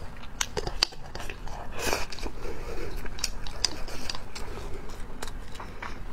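Close-miked eating: chopsticks clicking against a ceramic rice bowl as rice is shoveled into the mouth, with chewing and crunching throughout.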